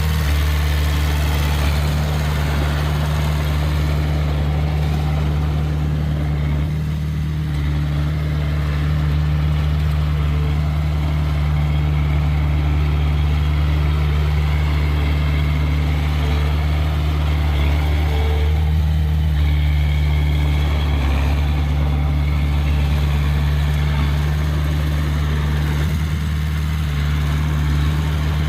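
An engine running steadily, a low even hum that holds unchanged throughout.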